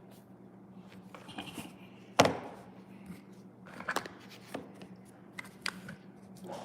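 Plastic Play-Doh toys and tools knocking and tapping on a tabletop, with one sharp loud knock about two seconds in and a few lighter taps after it, over a low steady hum.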